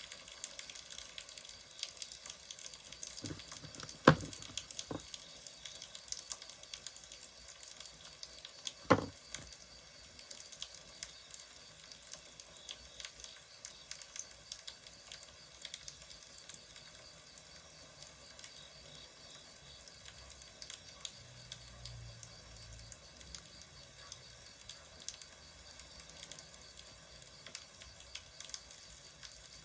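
Wood fire crackling steadily with many small pops, and two louder sharp knocks about four and nine seconds in.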